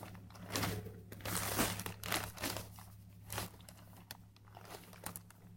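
Irregular rustling and crunching of soil and dry plant stalks being dug through by hand to unearth potatoes, busier in the first few seconds and fainter after.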